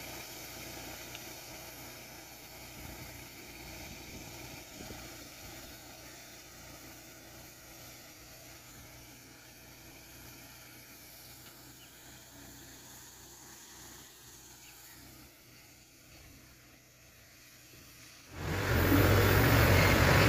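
Faint, steady running of a tractor-mounted crop sprayer heard from a distance, then about eighteen seconds in the sound cuts suddenly to the loud, close engine of the sprayer tractor running.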